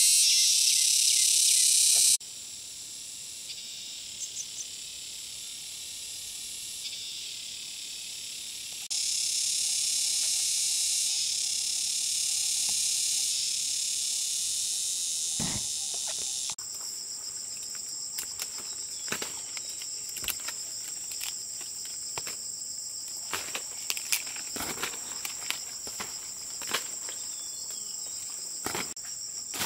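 Insects droning steadily in a high pitch, the chorus jumping louder or softer at a few abrupt cuts. In the second half a steadier, thinner insect whine carries on, with scattered short clicks and rustles over it.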